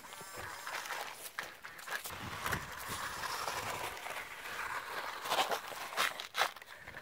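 Footsteps crunching and scuffing on gravelly rock, with a few sharper scrapes near the end.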